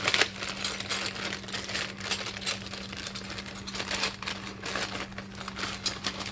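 Packaging rustling and small metal brake hardware clicking as a brake pad kit is sorted through by hand, in many irregular clicks, over a steady low hum.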